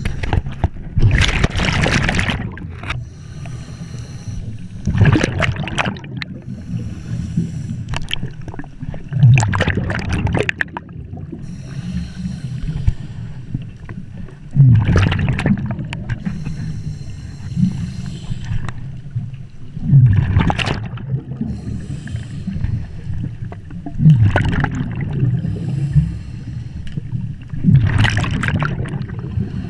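Scuba diver breathing through an open-circuit regulator underwater: a hissing inhalation, then a loud bubbling rush as each exhaled breath vents from the regulator, about every four to five seconds.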